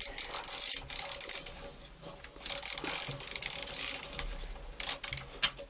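Hand ratchet with a T30 Torx socket clicking in several quick runs with short pauses between them, as the bolts of an automatic transmission's oil pan are backed out.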